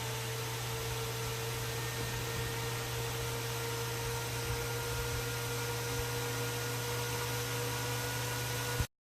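Steady hiss with a constant low electrical hum and a faint steady whine, cutting off abruptly near the end.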